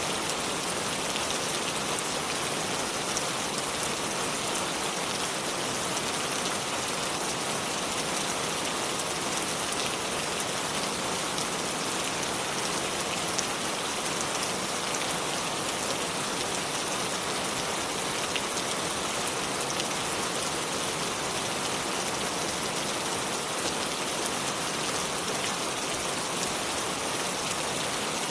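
River water flowing over stones: a steady, even rush with fine scattered splashes.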